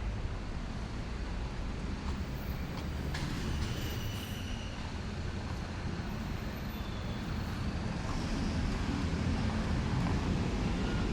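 City street traffic: passing vehicles make a steady rumble that grows louder over the last few seconds.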